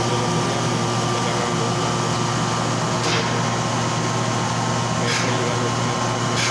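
Thermoforming machine running with a steady hum, broken by three short hisses about two seconds apart from about three seconds in.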